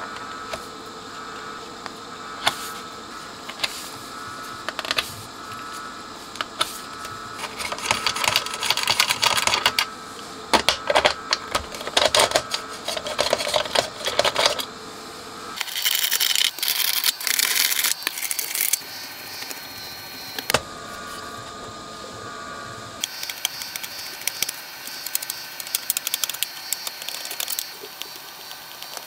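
Irregular clicks, scrapes and rattles of small metal parts and hand tools as a 1979 Kenwood KA-405 amplifier's front panel is stripped: knobs pulled off, the nuts on the control shafts undone with a nut driver, and panel screws turned with a screwdriver.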